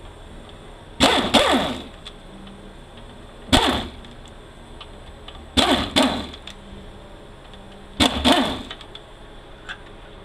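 Handheld power driver spinning out the T25 Torx screws on a 46RE transmission's valve body, in four short runs about two seconds apart, each falling in pitch as it spins down.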